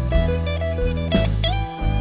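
Electric guitar playing blues lead lines through the Nux Amp Academy's Brit Blues amp model, over a blues backing track with drums and bass. It plays held notes, with one note bent upward about a second and a half in.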